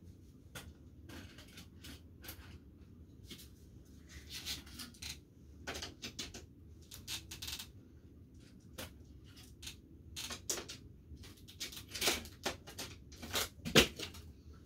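Scattered clicks, taps and light rustles of small objects being handled up close, coming more often toward the end, with one sharper tap just before it ends.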